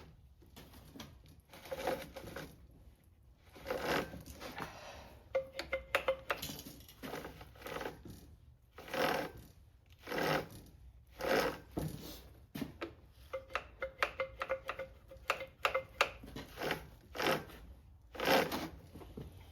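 A hand pump on a Homelite C5 chainsaw being worked in repeated strokes, an irregular series of short rasping pushes with clicks, roughly one every second or so.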